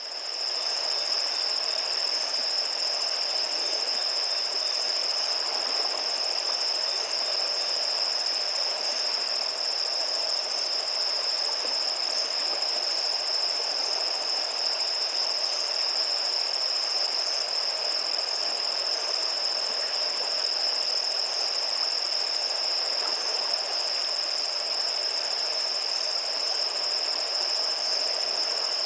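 Night chorus of crickets trilling steadily and without a break, a high continuous ring over a softer, even hiss.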